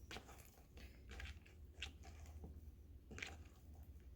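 Sticky glue-and-liquid-starch slime with magic-eraser jelly cubes being worked by hand: faint, irregular squishing and sticky crackling sounds.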